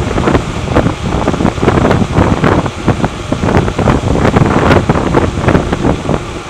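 Heavy wind buffeting on the camera's microphone from a bicycle's fast downhill run, an irregular, gusty rush.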